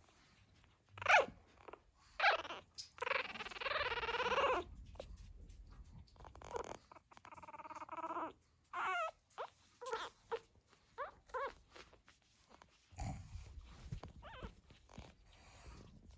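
Fourteen-day-old pug puppies whining and squeaking in a string of short, high, pitched calls, with one longer wavering whine about three seconds in. A low rustle about thirteen seconds in.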